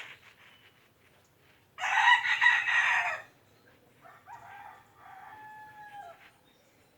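A rooster crows loudly about two seconds in, a crow of about a second and a half. Two fainter crows follow from about four seconds in, the last one falling in pitch at its end.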